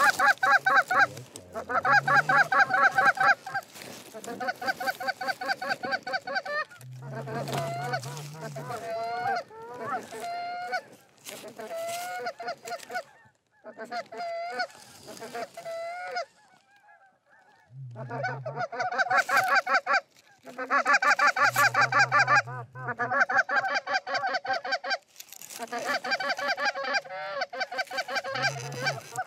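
Canada goose honking and clucking: rapid, loud runs of short honks with some drawn-out rising and falling calls, and a quieter gap in the middle.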